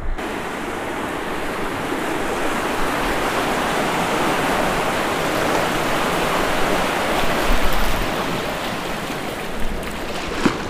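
Fast river current, swollen by high spring water, rushing around a kayak: a steady, loud rush of moving water. A brief knock near the end.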